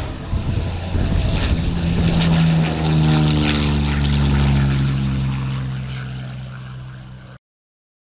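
P-40 Kittyhawk fighter's V-12 piston engine on a low, fast fly-past, its drone dropping in pitch as the aircraft goes by and then fading away. The sound cuts off abruptly near the end.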